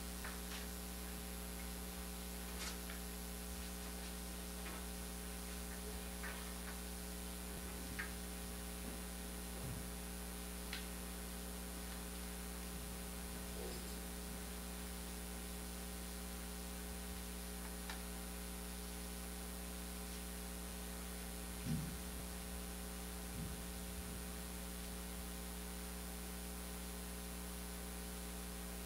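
Steady electrical mains hum with many overtones, and a few faint scattered clicks and knocks, the loudest about 22 seconds in, from the bassoon and music being handled.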